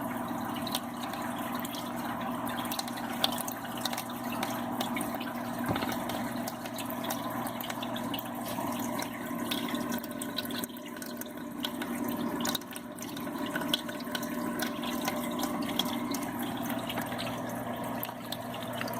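Aquarium water running in a thin stream from a drip-acclimation line into the fish's container, with small splashes and drips over a steady low hum.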